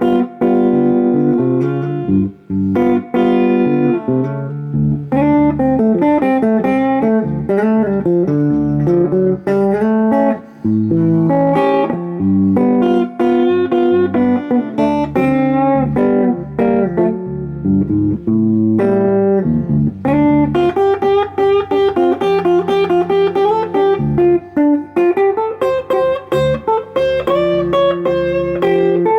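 Blues licks and chords on a Harley Benton HB35 Plus semi-hollow electric guitar played through a Fender Sidekick Reverb 25 solid-state practice amp. The amp is at a low volume with a little gain, the bass turned well up and a light touch of reverb.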